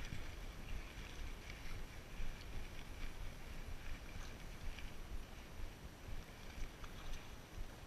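Low, uneven rumble of wind and body movement on a chest-mounted camera microphone, with faint scattered ticks as a spinning reel is cranked.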